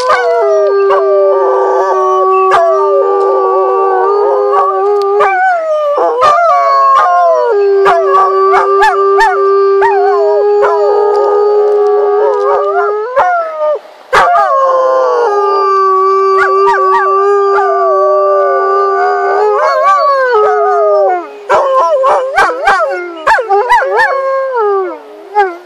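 Two wolf-like dogs howling together: one holds long, steady low notes while the other's howl slides up and down above it. They break off for breath a few times and stop near the end.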